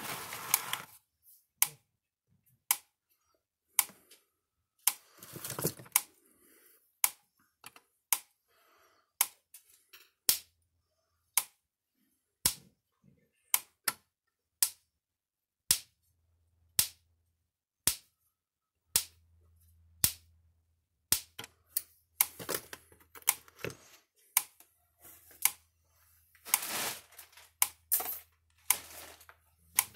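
Gallagher M1500 fence energizer pulsing, a sharp snap about once a second from each output pulse: the repaired unit firing normally. A few bursts of handling and tool clatter come in between the snaps.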